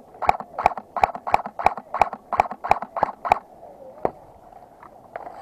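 A fast, even series of sharp knocks, about three a second, that stops suddenly about three seconds in, followed by one more single knock a little later.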